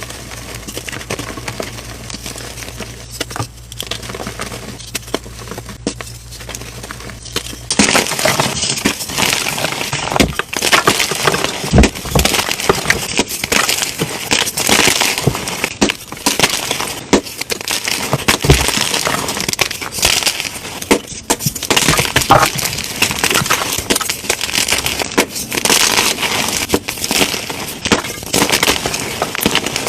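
Blocks of gym chalk being crushed and crumbled, a dense crunching and crackling. Quieter over a low hum at first, then louder crunching from about eight seconds in.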